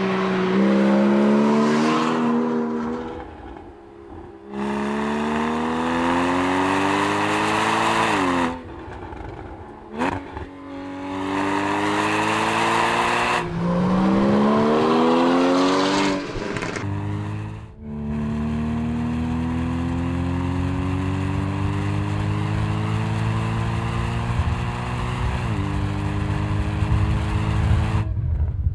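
Porsche Cayman S's 3.4-litre flat-six engine accelerating hard on a race track. Its pitch climbs through the revs in several separate runs, each ending in a sharp drop at an upshift or a break. A long, slower climb fills the second half, with one more upshift near the end.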